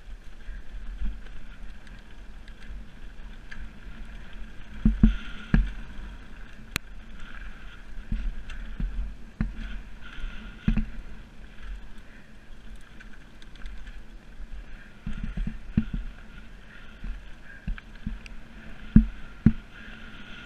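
Mountain bike riding down a dirt freeride trail, heard from a camera on the bike or rider: a steady rolling, rattling noise broken by sharp knocks from bumps and landings, the loudest a cluster about a quarter of the way in and two more near the end.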